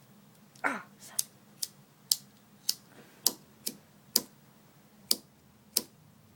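A lighter's igniter being clicked over and over, about ten sharp clicks at uneven intervals, without lighting: the lighter is jammed after pen ink was put into its gas outlet.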